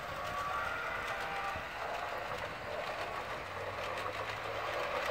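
New Bright G-gauge toy train running on its track: a steady mechanical whir with faint clicks.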